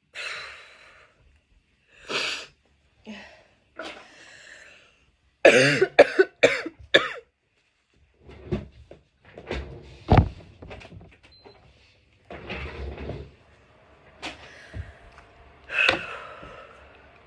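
A woman coughing in a long fit of repeated, separate coughs, brought on by chhinkni, an irritant sneezing powder. The loudest part is a quick run of four or five coughs about five and a half seconds in.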